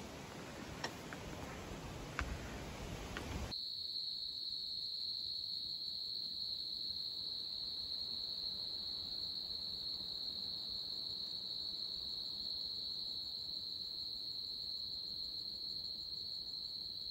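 Steady, high-pitched drone of a chorus of night insects, holding one pitch. For the first three and a half seconds there is instead an even hiss with a few light clicks, which cuts off suddenly where the drone starts.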